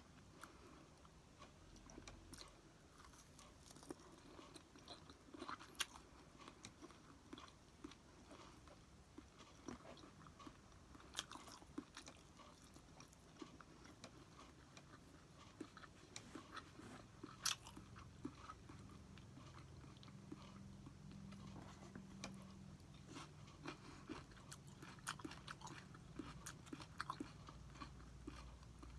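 Faint close-up chewing and biting of food, with scattered soft crunches and small clicks.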